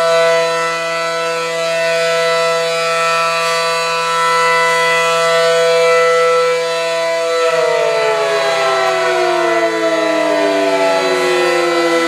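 Air raid siren sounding a loud, steady note, then winding down, its pitch falling steadily from about two-thirds of the way through.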